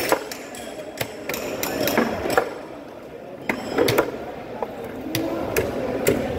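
A large knife chopping mahi-mahi into chunks, the blade knocking on a wooden cutting board in a string of irregular chops, about ten over a few seconds.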